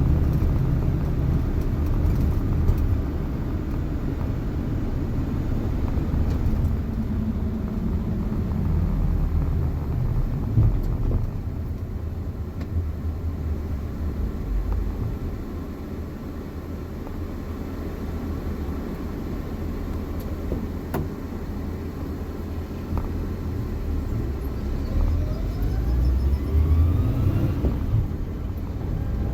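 Suzuki JA71 Jimny being driven: the three-cylinder engine and drivetrain rumble, with the engine note dropping as it slows about a third of the way in. Near the end a faint whine rises in pitch as the speed builds, the whine of a failing transmission bearing.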